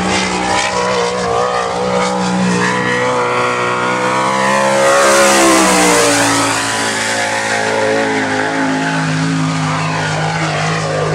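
A winged dirt sprint car's V8 engine running at speed on hot laps. It comes closer and passes by about halfway through, loudest as it goes past, with its pitch dropping as it pulls away.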